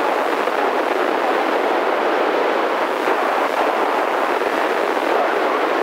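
Steady FM static hiss from a handheld amateur radio's speaker, tuned to the AO-91 satellite's downlink with no voice coming through.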